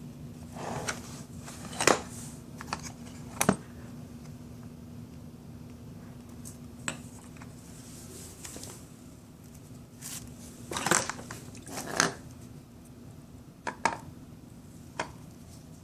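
Metal tools and parts clinking and knocking irregularly while the pressure washer is taken apart, the loudest clink about two seconds in and a cluster of knocks near eleven to twelve seconds. A steady low hum runs underneath.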